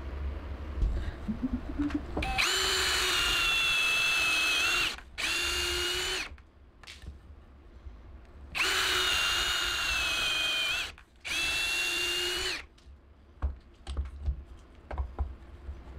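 Cordless drill boring holes through wooden battens: two drilling runs, each a burst of a few seconds followed by a shorter one, with a steady motor whine. Light knocks as the battens are handled near the end.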